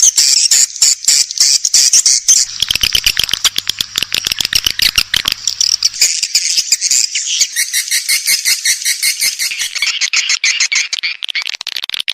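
Swiftlet lure call recording (suara panggil walet): a dense, high-pitched chatter of short chirps repeating many times a second without a break, the kind of sound played in swiftlet houses to attract edible-nest swiftlets.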